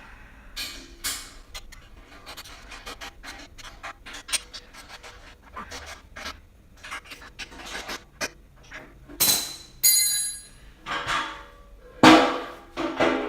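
Music with drums playing in the background, over scattered clicks and a few louder clanks of metal dolly parts and tools being handled during assembly.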